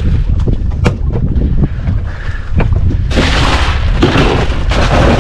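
Wind rumbling steadily over the microphone on an open boat, with a few sharp knocks at a fish cooler, then from about three seconds in a loud rustling crunch of ice and the plastic ice bag as the fish is packed into the cooler.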